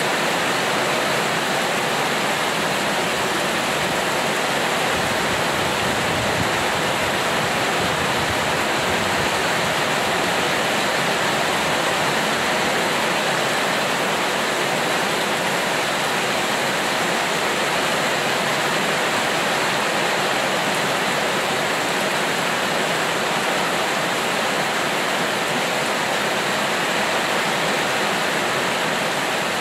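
Heavy rain falling steadily: an even, unbroken rush with no separate drops or gusts standing out.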